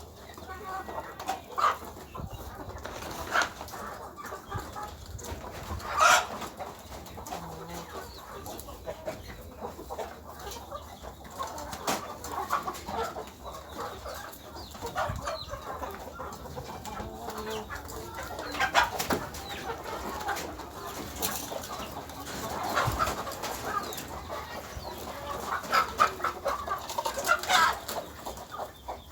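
Chickens clucking on and off, with scattered sharp clicks or taps among the calls.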